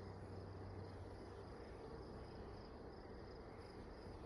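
Faint steady buzzing of honeybees from an open hive during a frame inspection, with a high, evenly pulsing insect trill in the background.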